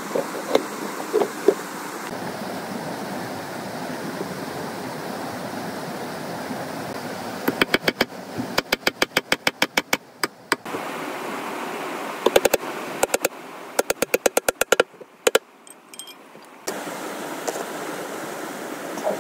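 Hammer driving nails into weathered wooden boards of a box fish trap: a few single blows near the start, then fast runs of light taps in bursts with short pauses through the middle, over a steady background rush of river water.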